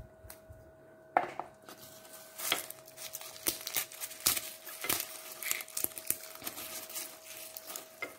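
Garlic cloves being peeled by hand with a small kitchen knife: papery skins crackling and rustling, and the blade clicking and scraping against the cloves in many short, irregular ticks, with a sharper click about a second in. A faint steady hum runs underneath.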